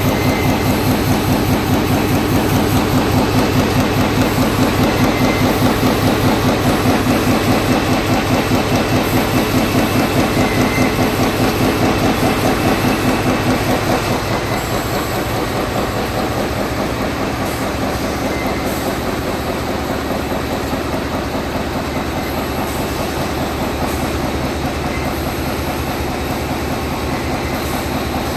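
Flexo printer folder gluer for corrugated boxes running in production, a loud, fast, even mechanical clatter. It gets slightly quieter about halfway through.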